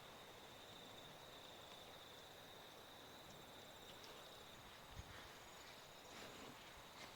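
Faint, steady high-pitched insect drone over near-silent outdoor background, with a soft low thump about five seconds in.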